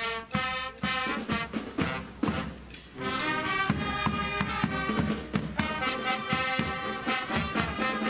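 Brass marching band playing live: trumpets and trombones over a steady beat. The playing thins out briefly about two and a half seconds in, then comes back in full.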